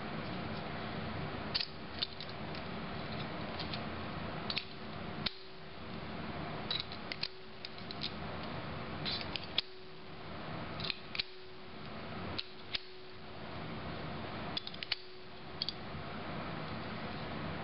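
Small metal clicks and scrapes of a .455 Prideaux revolver speedloader being turned and worked by hand, coming singly and in little clusters every second or two over a steady background hiss.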